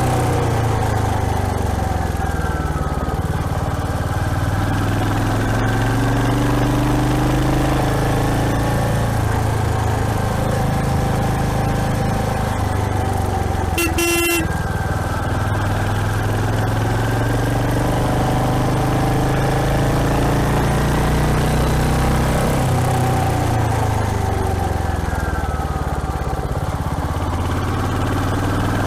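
Royal Enfield Hunter 350's single-cylinder engine running under way, its note rising and falling slowly with the throttle. A vehicle horn honks once, briefly, about halfway through.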